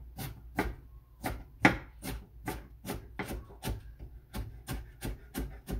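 Kitchen knife slicing red cabbage on a cutting board: steady, even chopping strokes at about three a second.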